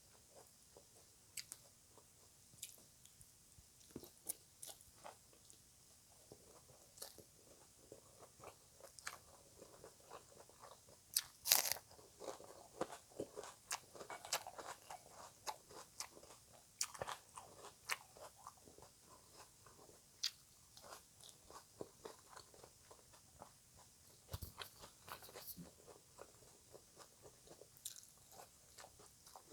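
Close-up eating sounds: crisp shredded green papaya salad being bitten and chewed, with many crunches and wet chewing. The loudest crunch comes about eleven and a half seconds in.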